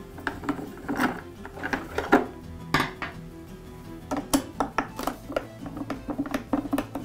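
A hand screwdriver clicking and clinking irregularly against screws as they are backed out of an air compressor's plastic handle shroud, over light background music.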